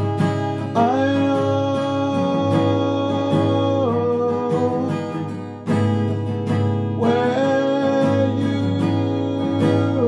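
Acoustic guitar playing with a voice singing long held notes, each scooping up into pitch, about a second in and again around seven seconds in.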